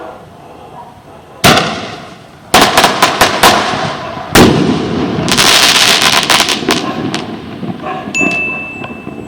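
A firework rocket of the 'chuva de luzes' (rain of lights) type going off: a sharp bang, a quick run of cracks, a second bang, then about two seconds of dense crackling, fading near the end.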